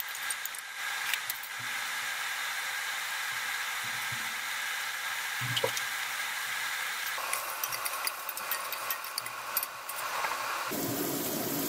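Shrimp heads, shells and squid trimmings sizzling steadily in olive oil in a small stainless saucepan, being toasted for a seafood stock. A few light taps of a utensil on the pan sound over the sizzle.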